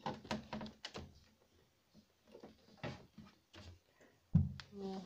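Close handling noise from hands working through long hair beside the microphone: scattered short rustles and taps. A loud knock comes about four seconds in, followed by a brief murmur of a voice.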